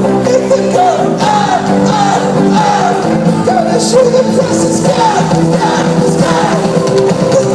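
Live band playing a pop song, with a sung lead vocal over sustained chords.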